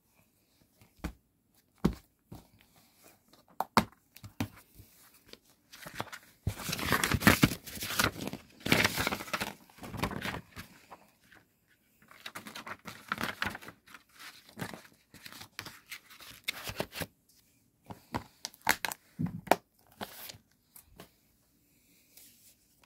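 Plastic DVD case being handled and opened: a few sharp clicks and knocks, then long stretches of rustling and crinkling.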